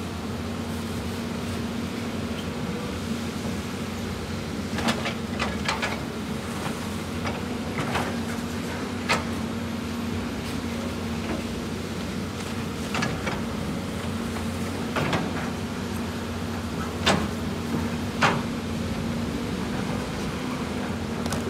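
CAT 320D excavator's six-cylinder diesel engine running steadily under load while it digs on a rock slope, with irregular sharp knocks and clanks of the steel bucket striking and scraping rock.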